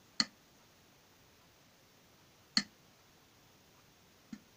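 Computer mouse clicking three times: a sharp click just after the start, another about two and a half seconds in, and a fainter one near the end.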